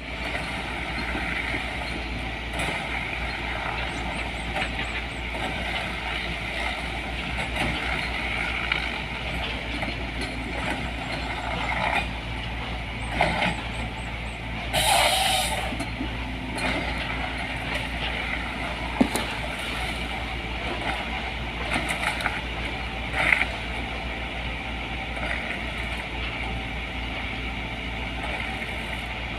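LiuGong 915E excavator with a harvester head, its diesel engine running steadily under hydraulic work. About halfway through there is a short loud hiss, and a few sharp knocks follow later on.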